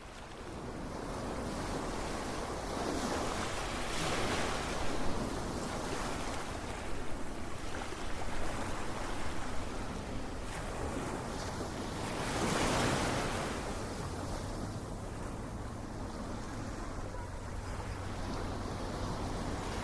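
Ocean surf: a continuous rush of breaking waves that swells about four seconds in and again a little past the middle.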